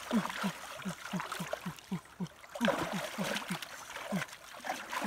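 A rapid series of short, low calls, each dropping in pitch, about three a second, from an animal. They sound over water trickling and splashing around the legs of someone wading in the shallow river.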